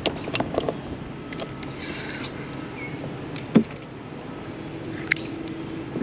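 Kayak paddling on calm water: a steady wash of water and wind, broken by several sharp clicks and knocks, the loudest about three and a half seconds in.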